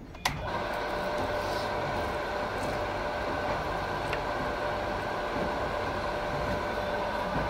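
A switch clicks about a quarter second in and a Crompton Mini Master domestic monoblock water pump, just primed with water, starts and runs steadily: an even motor hum with a constant whine.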